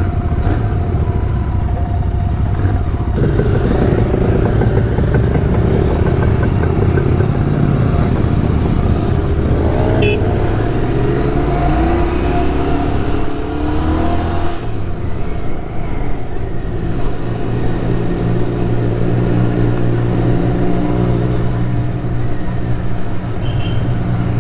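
Motorcycle engine running under way with road and wind noise, its pitch rising and falling several times as it accelerates through the gears about ten seconds in, with other motorcycles riding ahead.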